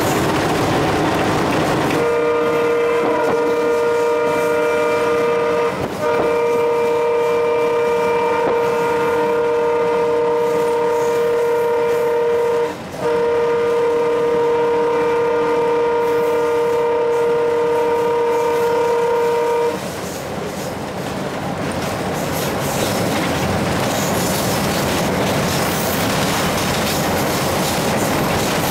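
Alco WDM3A diesel locomotive's horn heard from inside the cab, sounding in three long blasts with only brief breaks between them, the last ending about two-thirds of the way through. Under and after it runs the steady noise of the locomotive and its wheels at speed.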